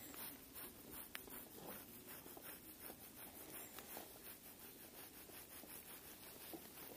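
Near silence: a faint, even hiss with a few faint ticks.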